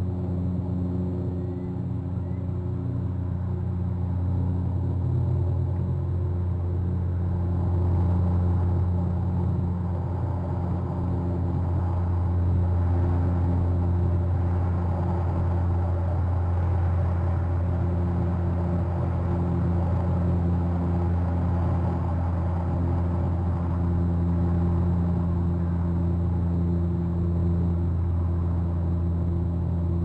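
Steady low engine drone with an even, pitched hum, growing slightly louder from about eight seconds in.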